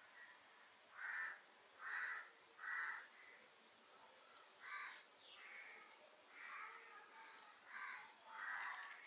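Faint, harsh cawing calls of a bird: three loud calls in quick succession about a second in, then several weaker ones through the rest.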